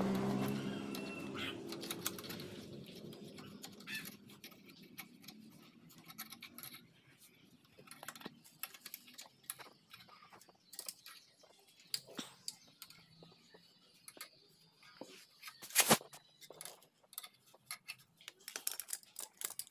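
A screwdriver clicking and scraping against the metal end cap of a chrome motorcycle silencer in short, irregular taps, with one louder metal clank about sixteen seconds in. A low engine hum fades away over the first couple of seconds.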